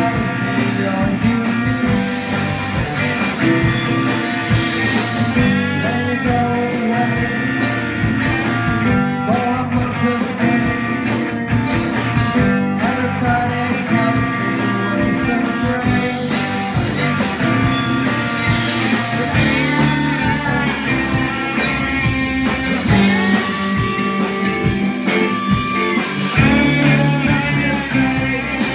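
Live rock band playing with electric guitars, keyboards and drums.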